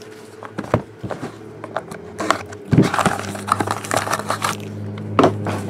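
Light clicks and taps of a football trading-card box and its cards being opened and handled by hand, with a low steady hum coming in about three seconds in.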